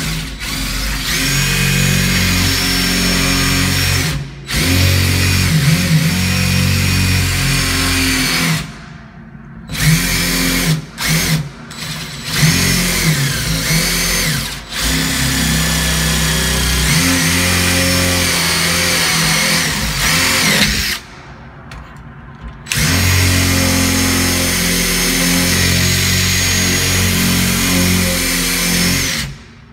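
Power drill spinning an Easy Out screw-extractor bit in a stripped screw. It runs in several long trigger pulls with a few short blips between, and the motor pitch wavers under load. The extractor is not getting a grip and is only chewing up the screw head.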